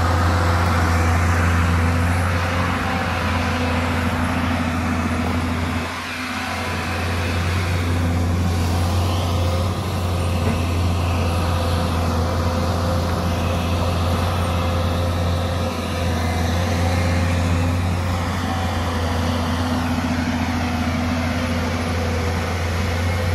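Hyundai crawler excavator's diesel engine running steadily under working load as the machine digs, easing briefly about six seconds in.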